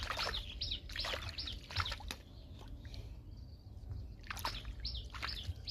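Hands sloshing and dabbling in a shallow muddy puddle, feeling for snails and clams, with brief splashes. Birds chirp in the background, a string of short, high, falling chirps.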